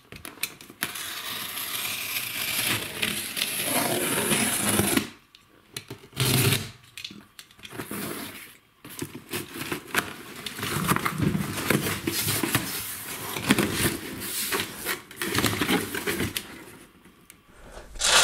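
A utility knife cutting open a cardboard shipping box, with scraping and rustling of the cardboard and packaging in several long stretches broken by short pauses.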